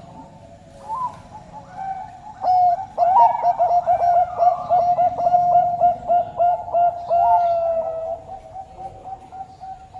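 Bangkok-strain zebra dove (perkutut) singing: a fast run of short, clipped coo notes starting about two and a half seconds in, running into a longer drawn-out coo that fades near the end, with faint higher chirps above it.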